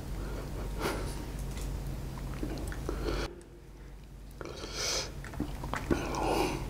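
Sambal-topped jumbo fried chicken being torn apart by hand close to the microphone: the crispy crust crackling and the meat pulling away from itself in a few short bursts.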